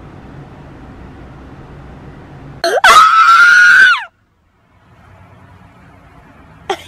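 A shrill, piercing scream lasting about a second and a half, much louder than anything around it, that cuts off abruptly. It follows a few seconds of low steady background hum.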